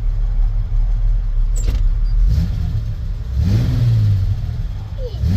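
1967 Chevy C10 pickup engine idling, with its revs rising and holding higher twice before dropping back. A single sharp click sounds about a second and a half in.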